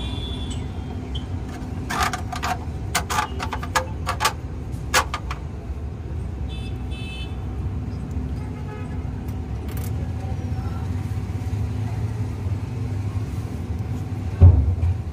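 A steady low mechanical hum like an idling engine, with a run of sharp clicks and taps two to five seconds in and a single loud knock near the end.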